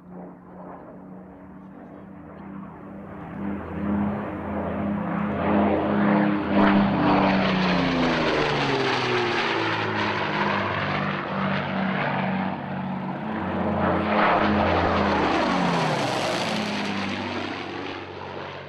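Propeller-driven piston-engined aircraft flying past twice. Each time the engine note swells in level and then drops in pitch as it passes.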